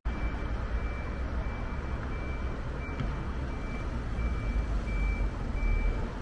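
A vehicle reversing alarm beeping steadily, about three high beeps every two seconds, over a low street rumble.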